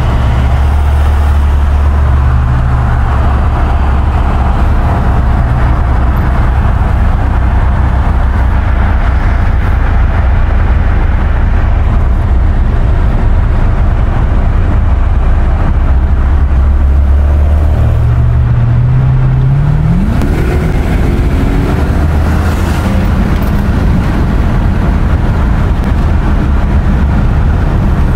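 Car engine and tyre noise at highway speed, heard from inside a moving car's cabin as a steady low drone. About two-thirds of the way through, an engine note climbs sharply as a car accelerates hard.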